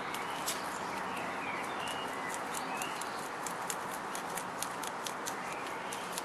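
Two lop rabbits munching fresh dandelion leaves: rapid crisp crunching clicks, about five or six a second.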